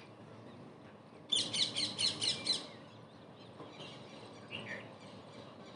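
A bird chirping: a quick run of about eight loud, high chirps lasting just over a second, with a fainter single call a few seconds later.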